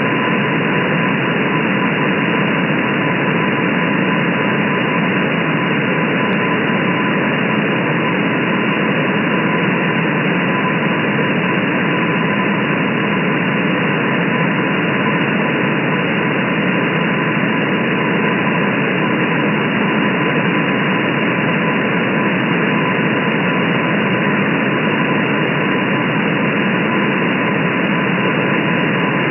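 Shortwave receiver hiss and static from an RTL-SDR in upper-sideband mode, with the weak Morse code tone of the M12 number station barely above the noise. The hiss is steady and cut off above the sideband filter's narrow passband.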